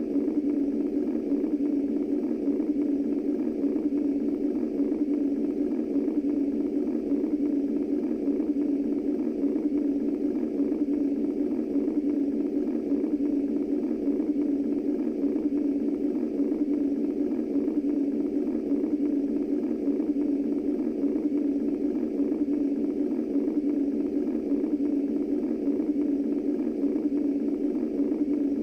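Steady, muffled womb-style white noise for soothing babies: an even, unchanging rush centred low, around a deep hum, with no breaks.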